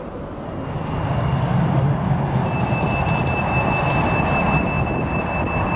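Class 399 tram train pulling away from a stop, heard on board: a rumble that grows louder over the first second, then a steady high whine joins from about halfway through as it runs along the track.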